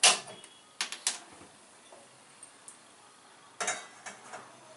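Sharp clicks of a hand-held gas lighter at a gas stove burner, the loudest right at the start and two more about a second in. Near the end, a small stainless-steel pot is set down on the burner grate with a few metal clinks.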